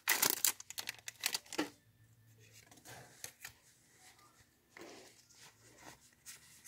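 Foil Pokémon booster pack wrapper crinkling as it is pulled open for about the first second and a half, then faint scattered rustles and soft taps of the cards being slid out and handled.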